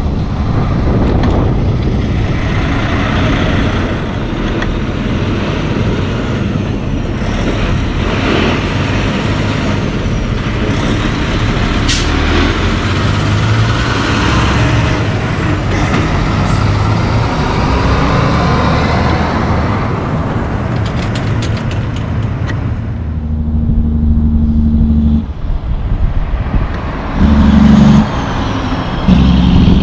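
Class 8 semi-trucks passing close by, with diesel engine drone and tyre roar from the loaded tractor-trailers and a brief hiss about twelve seconds in. In the last several seconds a steady engine hum comes in and it gets louder.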